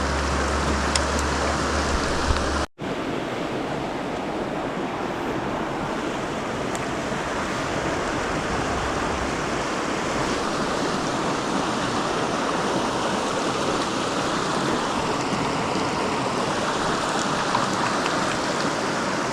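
Steady rush of a mountain stream's flowing water. It drops out to silence for an instant about three seconds in.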